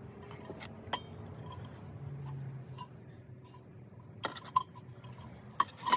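Cut-open halves of a stock motorcycle exhaust muffler being handled, giving scattered light metallic clicks and clinks, a single one about a second in, a few more past the middle and the loudest near the end.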